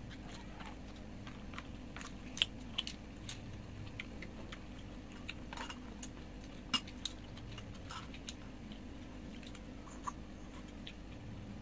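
Close-up eating sounds: chewing and biting of seafood, with scattered small clicks of chopsticks against bowls and plastic food containers, the sharpest clicks about two and a half seconds in and again near seven seconds. A faint steady low hum runs underneath.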